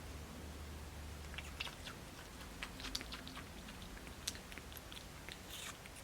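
Squirrel monkey eating juicy watermelon: a scattering of small, quick chewing and smacking clicks.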